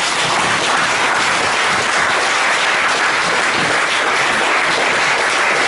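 An audience applauding, many people clapping together at a steady level.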